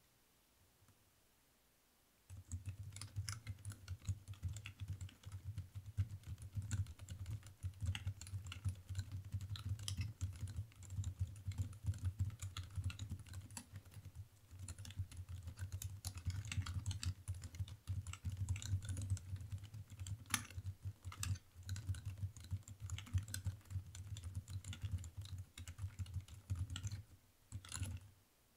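Typing on a custom-built mechanical keyboard: a fast, continuous stream of key clicks that starts about two seconds in and stops shortly before the end.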